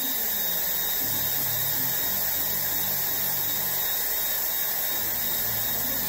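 Gamma+ IQ hair dryer running steadily: rushing fan airflow with a high motor whine.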